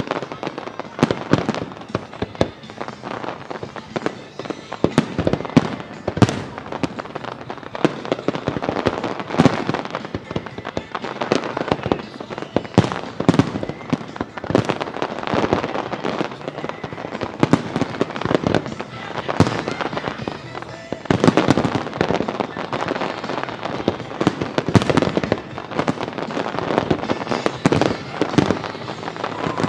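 Fireworks display: aerial shells bursting and crackling in rapid, overlapping succession, dozens of sharp reports with no pause.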